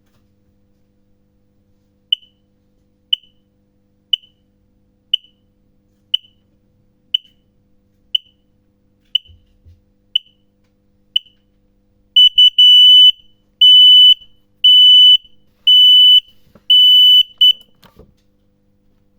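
Marine watch alarm sounding under test: a single high beep once a second for about ten seconds, then a louder stage of longer beeps, about one a second, for about six seconds before it stops with a click.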